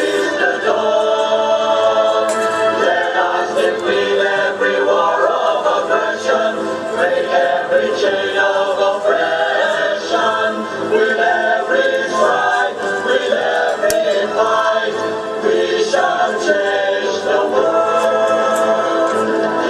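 Music with a choir singing sustained, held notes.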